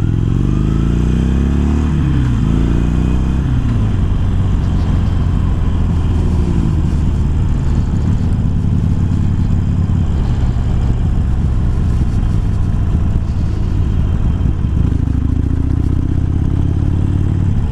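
Harley-Davidson Iron's air-cooled V-twin, fitted with a 1200 kit and Screamin' Eagle slip-on mufflers, running under way. The engine note rises and falls over the first few seconds, then holds steady and climbs again near the end.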